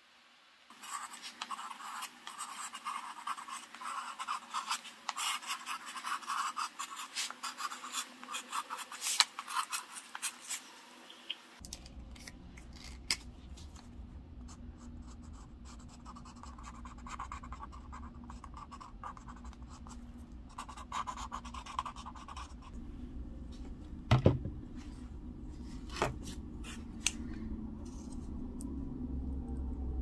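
A pen scratching on paper in quick, dense sketching strokes. About twelve seconds in, a low steady hum starts and the strokes thin out to short scattered runs, with a sharp knock about 24 seconds in.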